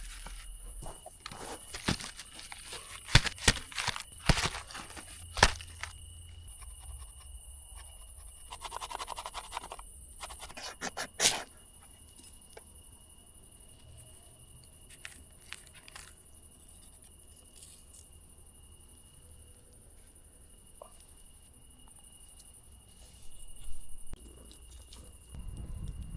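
Scattered sharp knocks and crunches of someone moving about and handling things, thickest in the first six seconds and again around ten to eleven seconds, then mostly quiet with a faint steady high tone.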